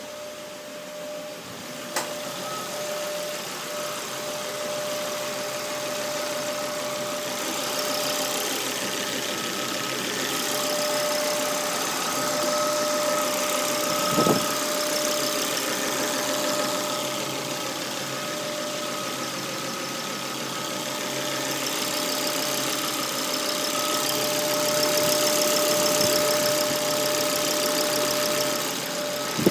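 Volvo V70 engine idling cold with a steady high-pitched whine over the running. The whine is the kind that stops when the oil dipstick is pulled and persists despite a new oil trap and breather hose, pointing to the crankcase ventilation. A sharp click comes about two seconds in.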